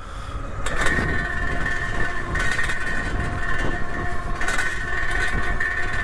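Windone K20 electric bike at full throttle: the motor sets up a steady whine about a second in, over wind and road rumble, while the loose front fender rattles and clatters.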